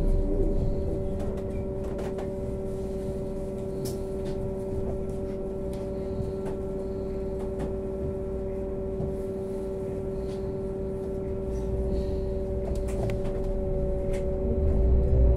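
Steady electric hum inside a stationary trolleybus, several held tones over a low rumble, with a few faint clicks. Near the end it grows louder and rising tones come in as the trolleybus starts to pull away.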